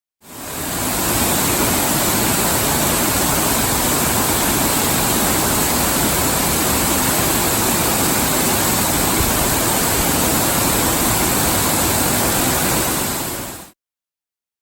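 Steady rushing of Nabegataki waterfall's falling water, fading in at the start and fading out near the end.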